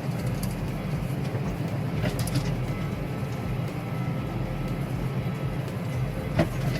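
Farm tractor running steadily under load, heard from on board, with a low continuous hum and brief rattles about two seconds in and again near the end.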